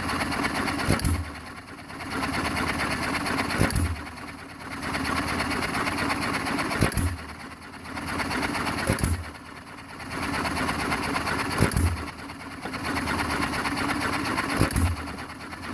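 Rebuilt John Deere 1 1/2 hp single-cylinder hit-and-miss engine running: a sharp firing stroke about every two and a half to three seconds, six in all, with a steady mechanical clatter in between as it coasts on its flywheels.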